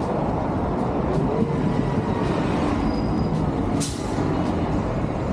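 City bus engine running at the curb, with a sharp hiss from its air brakes just before four seconds in.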